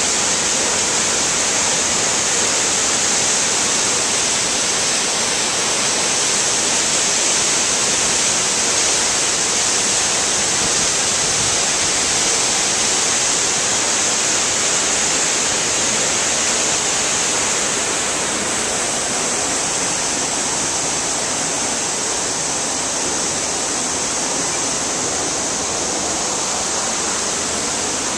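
Waterfalls pouring into a plunge pool: a steady, dense rushing hiss, dipping slightly in level about two-thirds of the way through.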